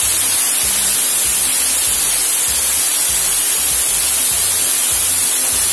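Kitchen tap water running steadily into a steel cup, which is then emptied into a pot: a steady hiss. Background music with a regular low beat plays underneath.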